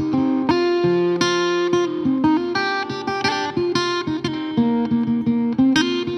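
Background music: a plucked guitar playing a quick run of notes.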